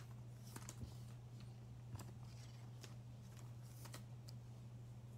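Faint, scattered taps and slides of trading cards being handled and set down on a tabletop, over a steady low hum.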